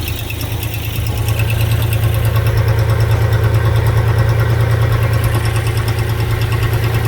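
Freshly reinstalled boat engine running at a steady idle, picking up slightly about a second in.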